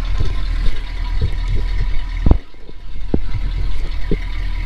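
Knocks and clinks of a truck's tire chains being handled and adjusted on the wheel, one sharp knock loudest about halfway through, over a steady low rumble.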